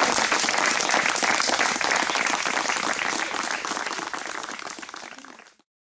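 Audience applause: many people clapping by hand, fading out over the last couple of seconds and then cutting off.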